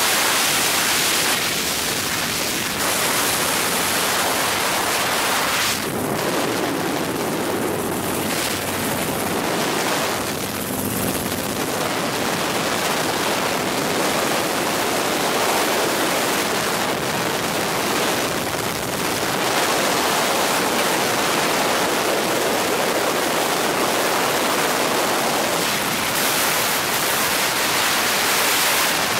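Steady noise of a helicopter in flight heard from inside the cabin: an even rush of engine, rotor and wind, with no break.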